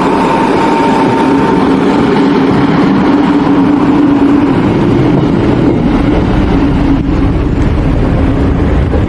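Train passing close by at a level crossing: a loud, steady engine drone with heavy running noise.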